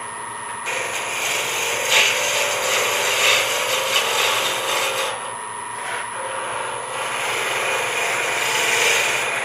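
Spindle gouge cutting a wooden pen blank spinning on a wood lathe at about 1300 RPM, roughing it down toward round: a steady hiss of cutting in long passes, broken by short pauses about half a second in and about five seconds in. A thin steady whine runs underneath.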